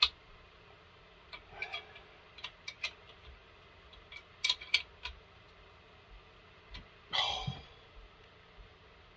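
Scattered light clicks and taps of a chainsaw bar, chain and hand tools being handled while the bar is fitted and the chain tensioned, with one longer, louder scrape about seven seconds in.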